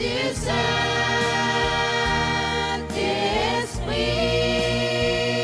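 A youth choir singing a French gospel song, drawing out long held notes on 'du… Saint-Esprit', with the chord changing about three seconds in over a steady low bass.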